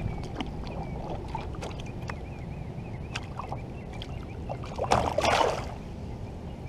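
A small hooked bass splashing at the water's surface beside a kayak as it thrashes and won't hold still, with one loud burst of splashing about five seconds in.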